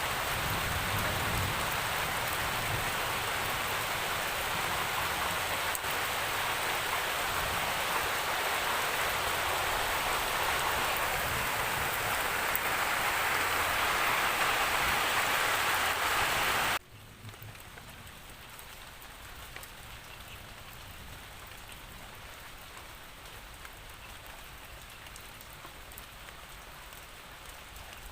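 Heavy, steady rain, growing a little louder, that cuts off suddenly about 17 seconds in to a much quieter, lighter rain with separate drops audible.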